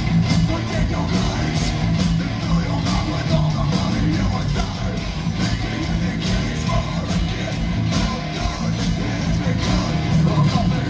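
Heavy metal band playing live: distorted electric guitars and drums, with yelled vocals.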